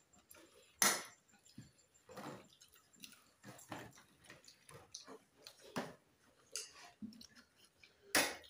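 Eating sounds at a shared meal: irregular clinks and taps of serving spoons and fingers on china plates and bowls, with chewing. Two sharper clinks stand out, about a second in and near the end.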